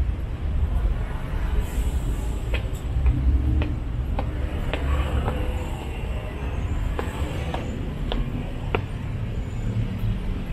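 City street ambience: a steady low rumble of traffic, with scattered sharp taps and clicks from about two seconds in to near the end.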